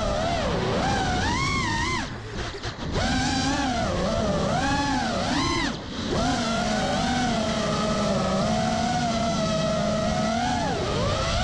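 FPV quadcopter's motors whining, the pitch rising and falling with the throttle, with brief throttle dips about two seconds in and again near the middle.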